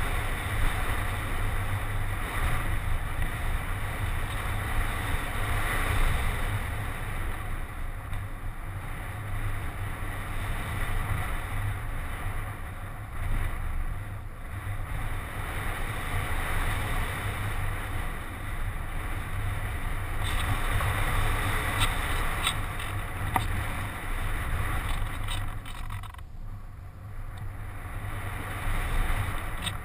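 Airflow rushing over a GoPro HD Hero mounted on a ParkZone Radian RC glider in flight: steady wind noise with a heavy low rumble of air buffeting the microphone.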